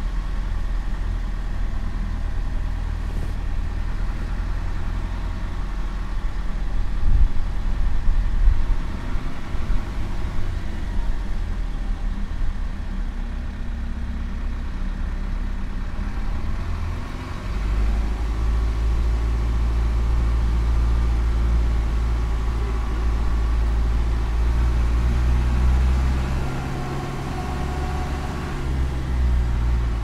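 A game-drive vehicle moving along, its engine running with a steady low rumble that grows heavier a little past halfway. There are a few knocks about seven to eight seconds in.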